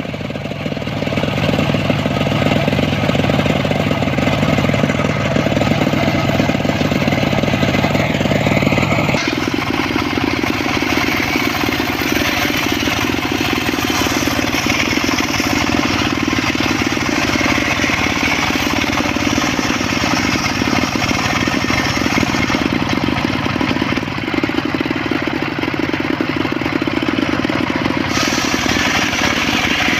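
Motor-driven circular saw running and cutting mahogany wood, a steady loud machine sound. About nine seconds in its tone changes, the low hum dropping and a hiss rising higher up, and it shifts again near the end.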